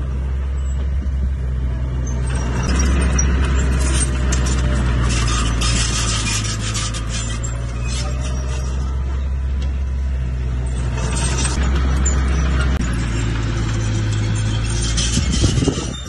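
Small crawler bulldozer's diesel engine working under load as its blade pushes a heap of broken rock and dirt, with rocks grinding and clattering against the blade and tracks. The engine grows louder and the rock clatter picks up around three to four seconds in and again around eleven seconds.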